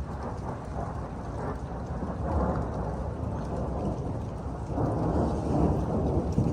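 Thunder from a close lightning strike rumbling over steady rain. The rumble swells about two seconds in and again near the end.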